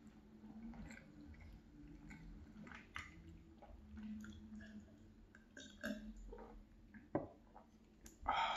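Close-up eating sounds from a cheeseburger meal: chewing, lip smacks and small mouth clicks, with a sip from a glass of lemonade about halfway through. A short, louder mouth sound comes just before the end.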